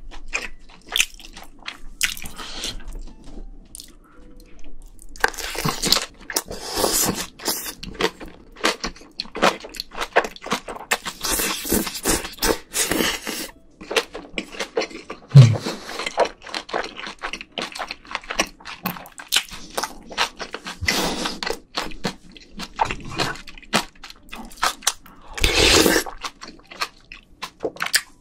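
Close-miked chewing of a mouthful of bibimbap: a dense, irregular run of wet mouth smacks and crunches.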